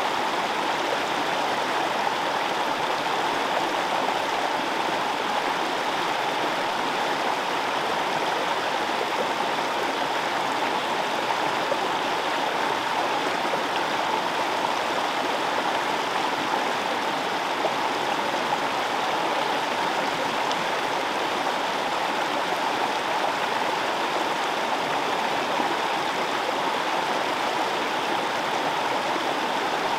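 Fast-flowing forest stream running over stones in a steady, unbroken rush of water.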